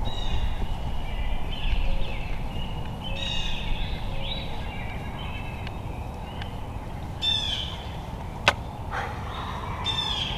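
Small birds chirping again and again, short calls with quick downward sweeps, over a steady low rumble. A single sharp click comes about eight and a half seconds in.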